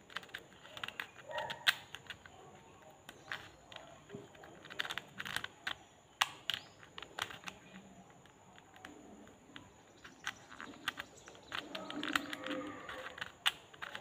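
Irregular plastic clicks and light rattles of a mini 3x3 Rubik's cube being turned by hand as its layers snap round. The cheap cube is stiff and turns with difficulty.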